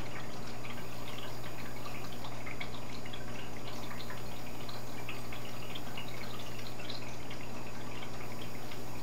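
Aquarium filter water trickling and bubbling steadily into the tank, a constant dribble of small splashes over a steady low pump hum.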